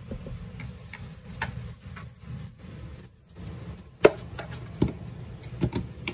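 A sponge dish brush scrubbing a soapy kitchen sink, with scattered clicks and knocks as it strikes the sink. The sharpest knock comes about four seconds in, with several more near the end.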